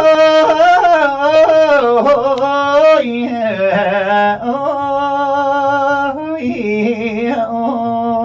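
A man singing long, drawn-out notes in Thai style, sliding between pitches and ornamented with a wavering vibrato. The voice has no clear words in this stretch.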